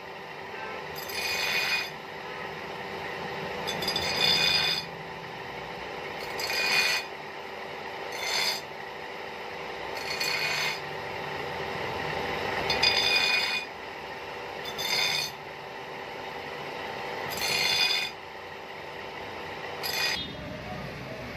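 Motor-driven grinding wheel running with a steady hum while the steel blade of an old rusty knife is pressed against it in about nine passes, each a rasping grind of a second or so, every two to three seconds, taking rust and metal off the blade.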